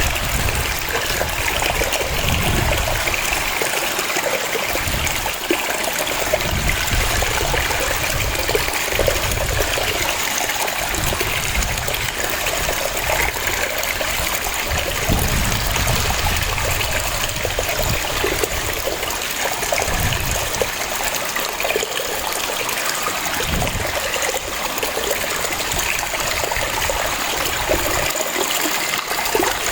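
Waterfall: a steady, continuous rush of falling water, with an uneven low rumble that swells and fades every few seconds.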